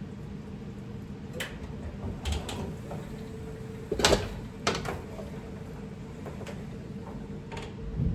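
A handful of separate knocks and clatters of kitchen utensils being handled as a whisk is fetched, the loudest about four seconds in, over a faint steady hum.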